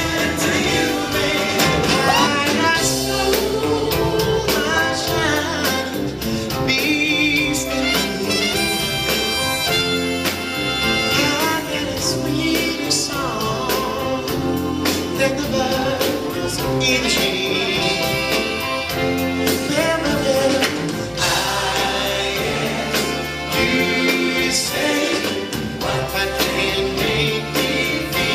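Live concert music: a vocal group singing in harmony over a backing band, steady and loud throughout.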